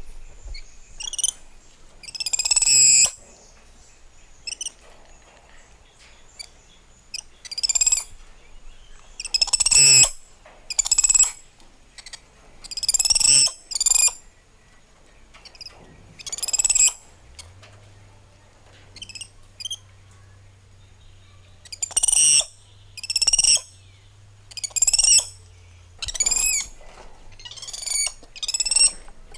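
Spider monkeys calling: a run of high-pitched squealing calls, each under a second long, coming every second or two.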